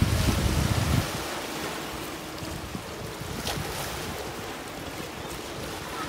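Small Black Sea waves washing onto a pebble shore: a steady hiss of surf. Wind buffets the microphone with a low rumble for about the first second.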